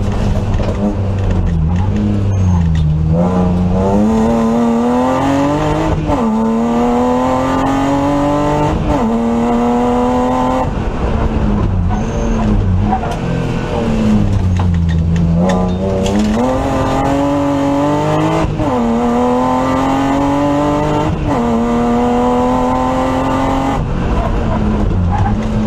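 BMW E36 328 rally car's straight-six engine, heard from inside the stripped cockpit, revving hard through the gears at racing pace. Its pitch climbs and drops sharply at each upshift, and falls away several times as the driver lifts and brakes for corners before pulling up again.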